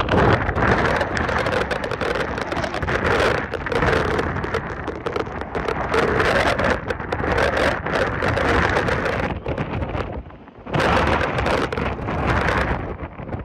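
Category 4 hurricane winds driving heavy rain, gusting hard against the microphone, with a brief lull about ten seconds in before the next gust.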